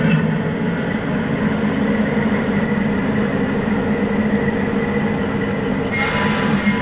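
Ride-on miniature railroad train running along its track as it moves away: a steady rumble of the locomotive and wheels on the rails.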